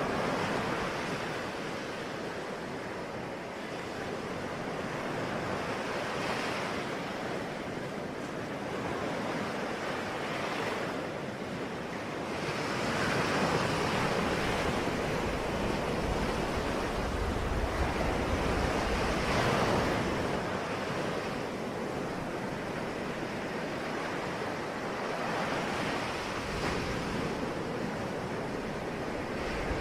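Ocean waves breaking and washing on the shore, a steady surf that swells and eases roughly every six to seven seconds.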